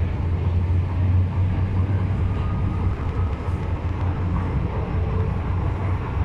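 Hong Kong MTR M-Train (Metro-Cammell electric multiple unit) running at speed, heard from inside the carriage by the doors: a steady, loud low rumble of wheels on rails.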